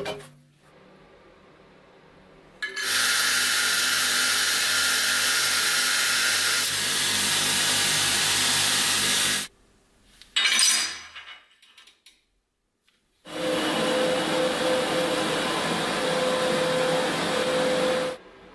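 Power tool working steel in two steady stretches of about seven and five seconds, with a short burst and a silent pause between them. The second stretch, with a steady tone running through it, is a belt grinder grinding the edge of a cut steel piece.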